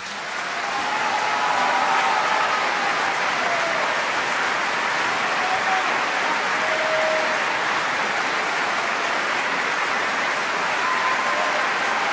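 Opera house audience applauding at the end of a tenor aria, the clapping swelling up within the first second and then holding steady, with a few short shouts from the audience over it.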